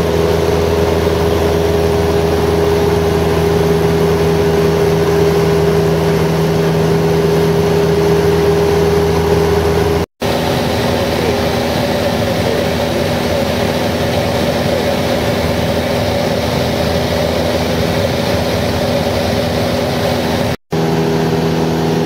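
Steady aircraft engine drone heard from inside the cabin during a scenic flight. The sound cuts out briefly twice, about halfway through and near the end, and the drone's pitch changes across the cuts.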